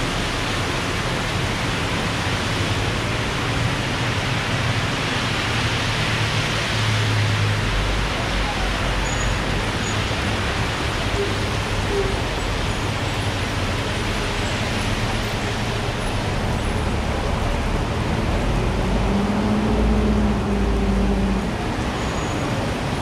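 Heavy rain falling steadily, with road traffic passing through it. A vehicle engine rumbles louder near the end, then fades.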